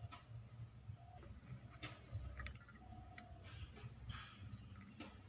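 Faint insect chirping in a steady, even rhythm of short high-pitched pulses, about three a second, over a low rumble with a few soft clicks.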